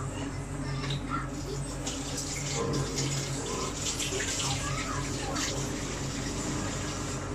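A pot of chicken soup boiling on a gas stove: a steady bubbling hiss, with a low steady hum underneath.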